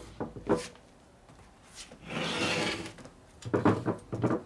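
Aluminium Harley-Davidson crankcases and a transmission case knocking and scraping on a steel-topped workbench as they are shifted and pushed together for a test fit: a few knocks at the start, a scrape lasting about a second about two seconds in, then a quick run of knocks near the end.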